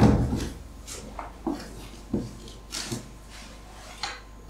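A cardboard parcel box being handled: a thump at the start, then scattered knocks, scrapes and rubbing of cardboard, with a short rasp near the middle as tape or a label is picked at.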